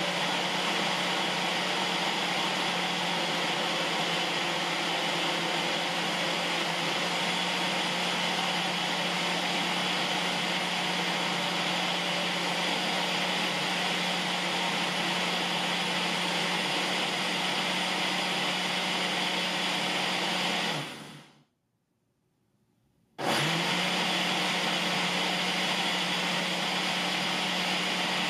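Ninja 1200-watt blender motor running its Auto IQ smoothie program, blending frozen fruit and milk in the 24-ounce cup: an extremely loud, steady whir. About three quarters of the way through it winds down, stops for about two seconds, and starts again abruptly, the programmed pause of the automatic cycle.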